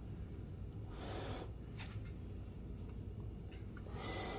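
A person chewing a mouthful of loaded cheese fries: two short spells of wet, crackly mouth noise, about a second in and again near the end, over a low steady hum.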